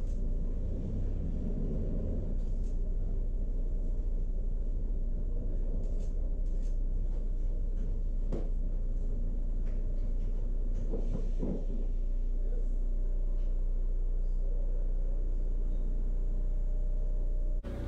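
Steady low rumble and hum inside a 1942 Trondheim Sporvei tramcar, with a few clicks and knocks, the clearest about 8 seconds in and two more about 11 seconds in.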